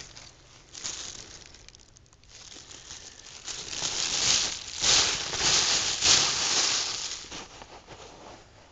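Plastic bag crinkling as it is handled to bag a deer-hair sample. It comes in a few short bursts at first, then in louder, denser crinkling through the middle few seconds.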